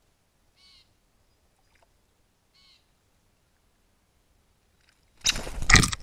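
Two faint short bird calls, then about five seconds in a loud, rough burst lasting about a second as a blue jay flies in and lands close to the microphone at the water's edge.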